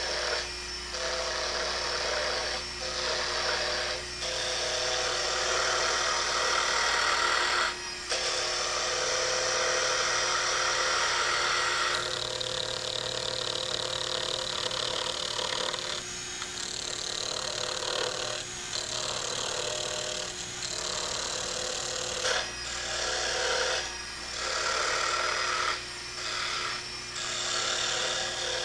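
A turning chisel cutting spinning wooden pen blanks on a mini wood lathe: a steady scraping of wood being shaved down, in long passes broken by short gaps as the tool is lifted and repositioned.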